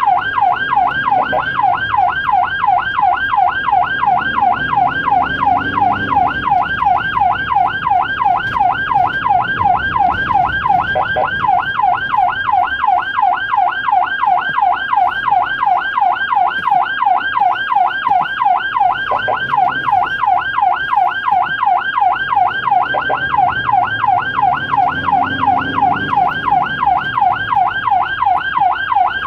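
Ambulance electronic siren in fast yelp mode, a rapid rising-and-falling wail of about three sweeps a second, heard from inside the cab over low engine and road noise.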